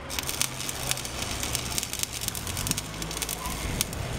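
Stick welder's electric arc burning on 6 mm steel rod: a steady, dense crackle and sizzle full of small sharp pops, with a low steady hum underneath.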